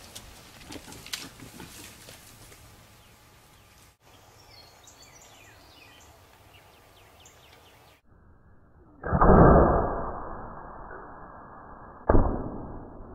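Bow shots: a loud thump about nine seconds in that fades over a second, and a second sharp crack about three seconds later. Before them, birds chirp faintly.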